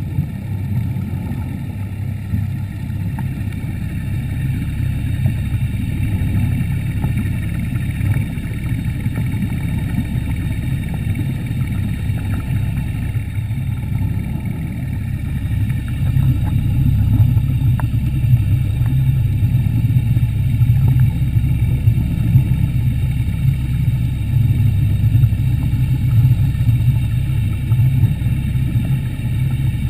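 Underwater scooter's motor and propeller running with a steady low drone, muffled underwater through the GoPro housing; it grows somewhat louder about halfway through.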